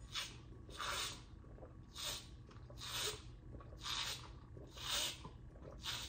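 A person gulping a drink from a plastic cup, taking big swallows with a short noisy gulp about once a second.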